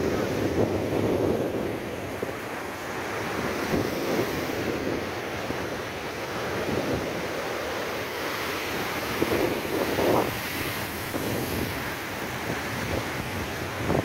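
Rough, storm-driven Mediterranean surf breaking over rocks and concrete breakwater blocks, surging and falling back every few seconds, with wind buffeting the microphone.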